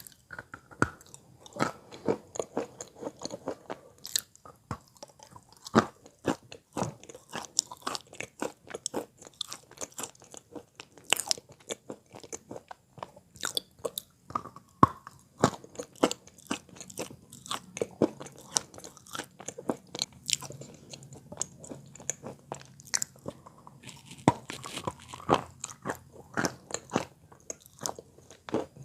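Wet chalk being bitten and chewed close to the microphone: a steady, irregular run of dull crunches and clicks, several a second.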